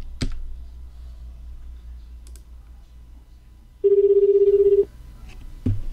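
A computer key clicks at the start and a faint click follows about two seconds in; then, about four seconds in, the telephone ringback tone of an outgoing internet phone call sounds once, steady and pulsing, for about a second. A dull thump comes near the end.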